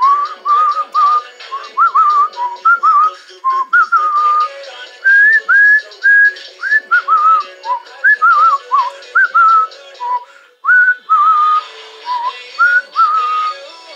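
Cockatiel whistling a long run of short warbling notes, many of them sliding up or down in pitch, with a brief pause about ten seconds in. Music plays softly underneath.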